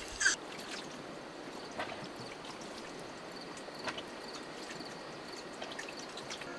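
Steady soft hiss of water, with a few faint taps.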